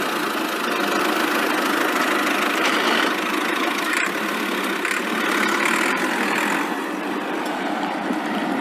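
A vehicle engine running steadily, thin-sounding with almost no deep bass.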